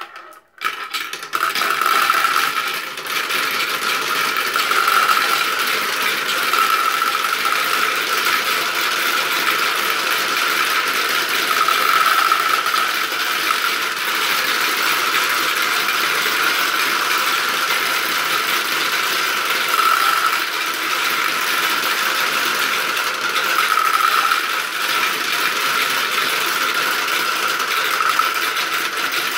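A crowd of about 136 marbles rolling and clattering together down a marble run: a dense, continuous rattle that holds steady once it gets going about half a second in.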